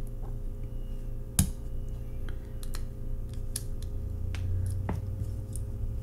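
Scattered small clicks and taps from a die-cast toy car's plastic base and wheel axle being handled by fingers with a small tool, one sharper click about one and a half seconds in. A steady low hum runs underneath.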